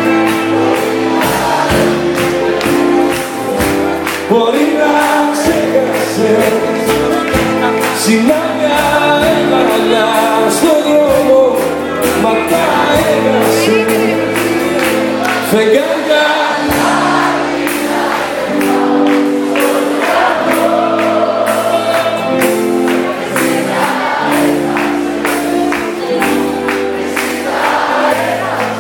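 Live concert music: a male singer singing into a microphone over a band playing sustained chords, heard from the audience.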